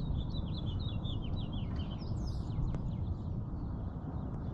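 Small birds chirping outdoors: a quick run of repeated short high notes in the first two seconds, then a few scattered calls. Under them runs a steady low rumble, which is the loudest thing here.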